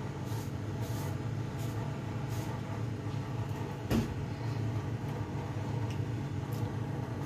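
A steady low hum, with faint light ticks and one sharp knock about four seconds in.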